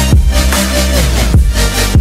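Electronic dance music with a heavy bass line and punchy kick drums.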